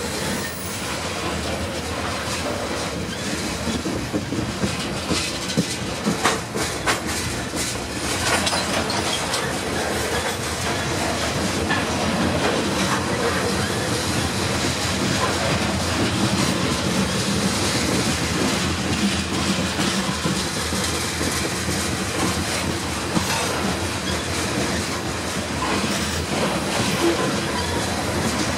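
Covered hopper cars of a freight grain train rolling past close by: a steady rumble of steel wheels on rail with clickety-clack, and a cluster of sharp clanks about four to seven seconds in.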